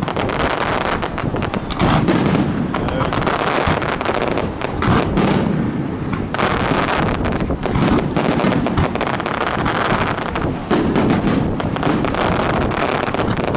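Fireworks display: a dense, continuous barrage of shell bursts and crackling stars, one sharp report after another with no pause.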